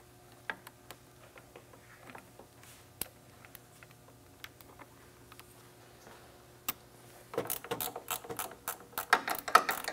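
Hands handling a snowmobile wiring harness: scattered small clicks of wires and plastic connectors, then from about seven seconds in a quick run of ratcheting clicks, the loudest part.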